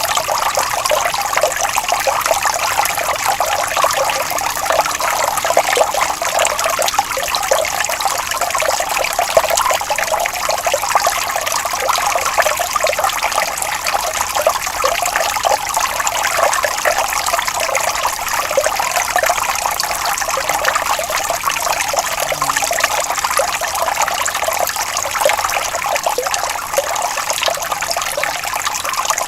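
Water flowing and trickling steadily, a continuous bubbling splash with no low rumble.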